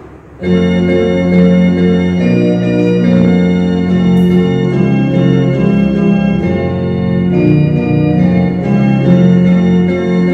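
Organ playing slow, sustained chords that change every second or two, starting about half a second in.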